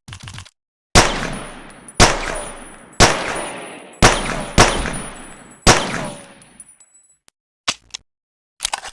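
A Colt pocket pistol firing six shots, about a second apart with the last three coming quicker, each shot trailing off in a ringing echo. A few light mechanical clicks follow near the end.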